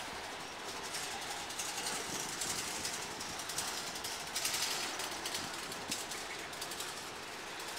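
Covered hopper freight cars rolling past, their steel wheels clattering and knocking on the rails, with a louder stretch of rattling about halfway through.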